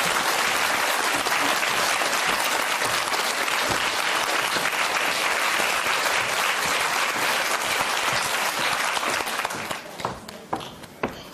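Studio audience applauding steadily, thinning out to a few scattered claps near the end.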